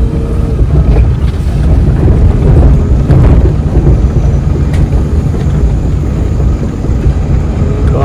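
Steady low rumble of a vehicle on the move, with wind noise on the microphone.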